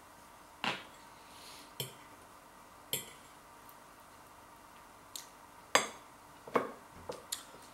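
Metal fork clinking and scraping against a plate while cutting pancakes: about eight separate sharp clinks, spaced irregularly, bunching up and loudest in the second half.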